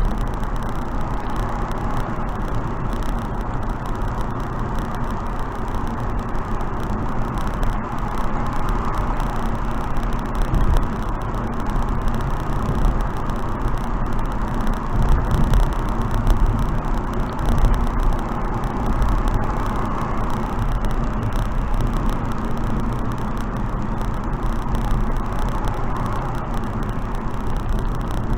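Wind and road noise of a car driving at expressway speed: a steady rush that swells a little now and then.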